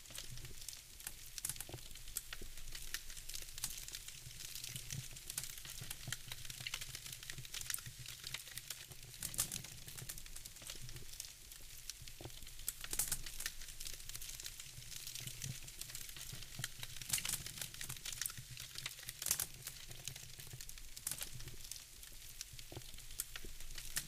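Wood fire crackling in a fireplace: logs burning with irregular pops and snaps over a low steady rumble.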